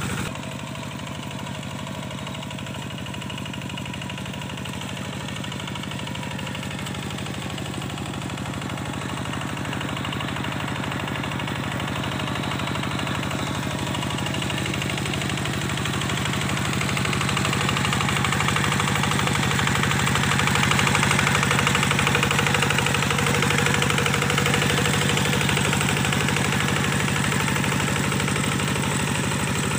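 Kubota diesel engine of a tractor running steadily while puddling a flooded paddy field, growing louder toward the middle and easing slightly near the end.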